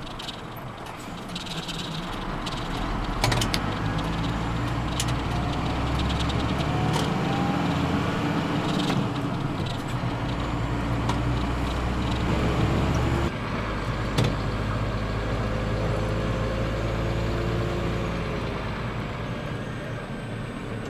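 Scania R114 380 truck's 11-litre inline-six diesel engine running under way, heard from inside the cab, getting louder over the first few seconds and rising in pitch as it pulls. About thirteen seconds in the deep engine note drops abruptly, with a few sharp clicks along the way.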